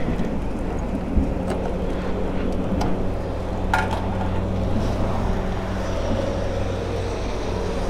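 A vehicle engine running steadily at idle, a low even hum, with a few light clicks about one and a half, three and four seconds in.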